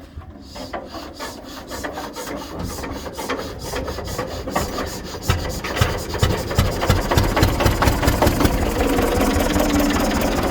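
Zetor 15 diesel engine being cranked over with the decompressor open. Its beats quicken as it spins up, and about five to six seconds in it fires and runs, getting louder.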